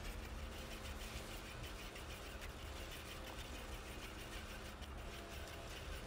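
Hand-cranked winch on a portable sawmill being wound, clicking as it reels in its cable and drags a heavy log up the loading ramps onto the mill, over a steady low rumble.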